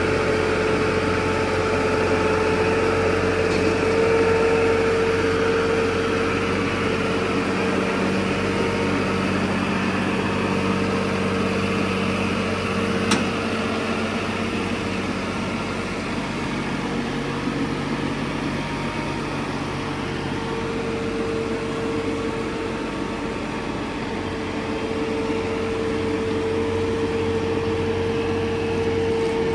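A vehicle engine running steadily at idle, with a steady mid-pitched whine over it. A single sharp click about thirteen seconds in.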